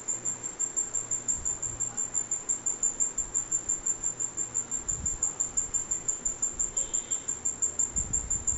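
High-pitched insect chirping, a steady even pulse of about five chirps a second, like a cricket.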